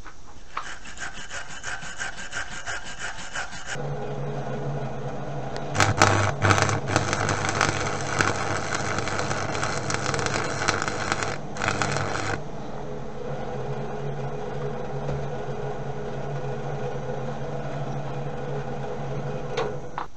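Arc welding a bead across a steel ring: the welding arc crackles loudly for several seconds in the middle, over a steady electrical hum. A rapid scratching is heard in the first few seconds.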